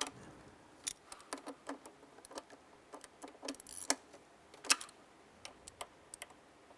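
Hand ratchet clicking as it snugs down throttle body mounting bolts: irregular short clicks and light metal taps in scattered runs, loudest a little before the 5-second mark.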